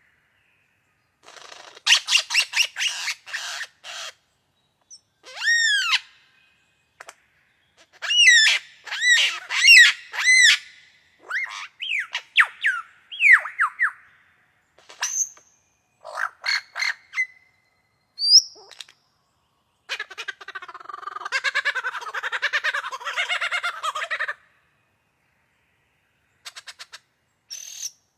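A bird giving a varied run of calls with pauses between them: quick clicking series, arched whistled notes, short downward-sliding notes, and a long harsh buzzing rattle near the end.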